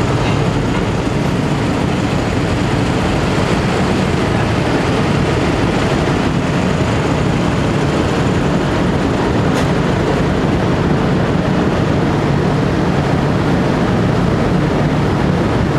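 A ferry's diesel engine running under way, a steady low drone mixed with an even rushing noise of water and wind.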